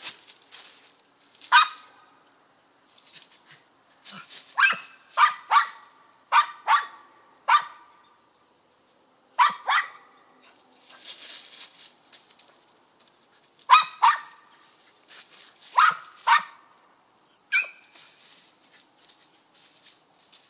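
Mountain feist squirrel dog barking at the foot of a tree it is jumping up: short, sharp barks, singly or in quick pairs, every second or two with short pauses, the tree bark of a squirrel dog that has a squirrel treed.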